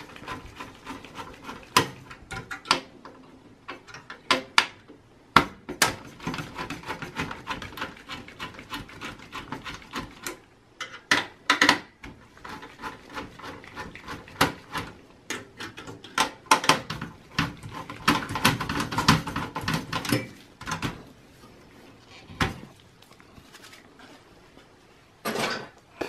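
A screwdriver working the screws that hold the CPU heat sink on an HP Z230 workstation motherboard, with the heat sink then handled off the board: irregular clicks, scrapes and small metallic knocks.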